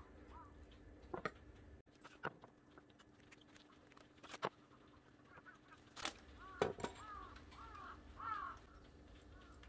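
A knife knocks sharply on a wooden cutting board several times during slicing. A bird calls in a run of short arching notes in the second half.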